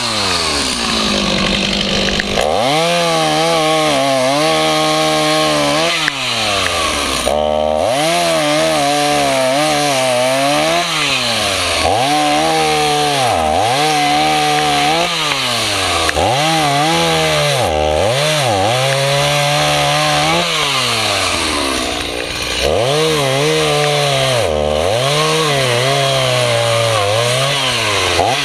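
Stihl two-stroke chainsaw cutting through a fallen tree limb. The engine runs at high revs, its pitch dropping and climbing again every couple of seconds as the throttle is eased and reopened in the cut, with two deeper drops to near idle.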